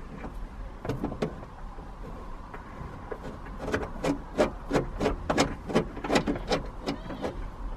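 Light metal clicks and scrapes as a bolt is put through a mounting bracket and worked into a tapped hole in a car's body panel; a few scattered clicks at first, then a quicker run of about three clicks a second from about three and a half seconds in.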